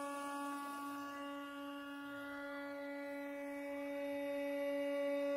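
CNC router's 1500 W spindle running at speed with a steady high-pitched whine as its end mill cuts a curved slot into a wooden board.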